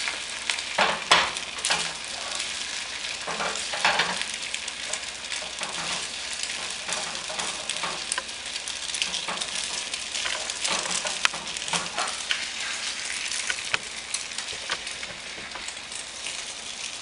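Beaten eggs sizzling in hot oil in a frying pan, with a utensil scraping and tapping against the pan now and then as the edges of the setting omelette are lifted so raw egg runs underneath.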